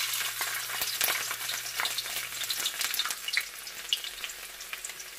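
Chopped garlic sizzling and crackling in hot canola oil in a wok as it starts to sauté, loudest in the first half and easing off after about three seconds.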